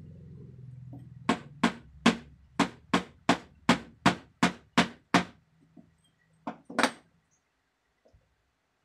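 Sharp knocks on a hard object, about a dozen in an even run at roughly three a second, then two more after a short pause, most likely the wooden handle of a homemade dowsing wand being tapped by hand.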